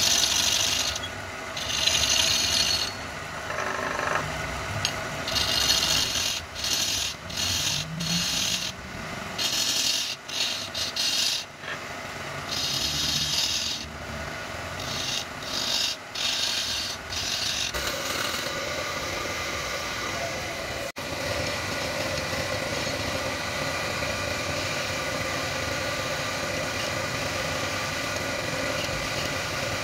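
Belt-driven wood lathe running while a gouge cuts into the spinning wood in repeated bursts of shaving noise. After about 18 seconds the cutting bursts stop and the lathe keeps running with a steady hum and only light tool contact.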